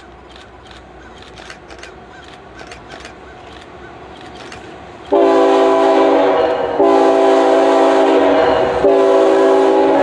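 Union Pacific GE diesel locomotive approaching with a low rumble, then its air horn sounding about halfway in: a loud chord of several tones held in long blasts with two short breaks.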